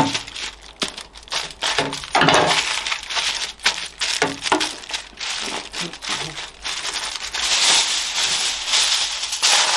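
Aluminium foil crinkling and crackling as hands fold and press it around a baked fish pasty on a baking tray, with many sharp clicks. The crinkling thickens near the end.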